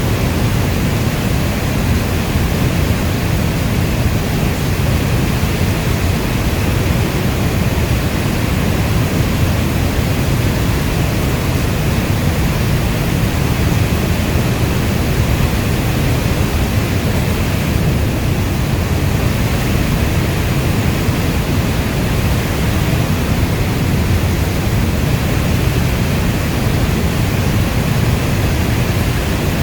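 Steady rainstorm, a dense even hiss of heavy rain with a deep low rumble underneath, unchanging throughout.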